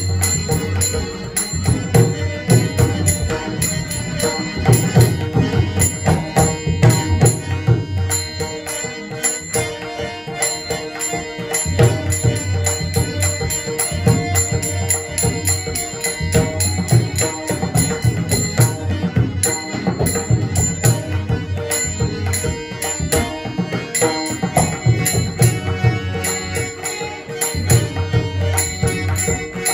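Marathi bhajan music: pakhawaj drum strokes under steady rhythmic strikes of small hand cymbals, with held tones beneath. The deep drum strokes drop out for a few seconds twice.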